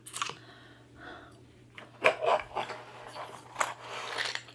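Handling noises: a few clicks and knocks with rustling between them, the loudest about two seconds in, over a steady low hum.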